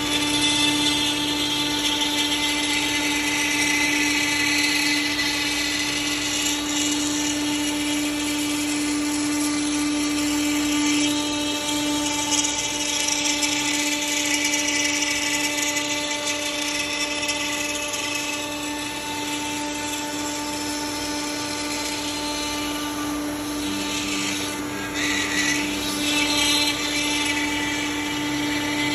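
CNC router spindle running steadily with its bit cutting wood: a steady whine over the rough noise of the cut.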